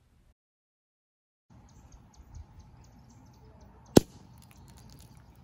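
A capped film canister bursting with one sharp pop as gas from a fizzing Alka-Seltzer tablet in paint and water blows it open, about four seconds in.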